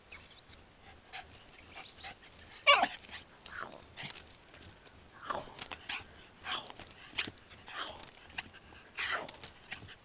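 Blue heeler (Australian cattle dog) giving short, excited whining yips that fall in pitch, about one a second. The loudest comes about three seconds in, with another near six seconds.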